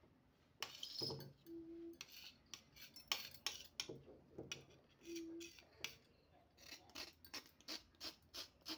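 A knife scraping the skin off a white radish in repeated short strokes, which quicken to about three a second near the end.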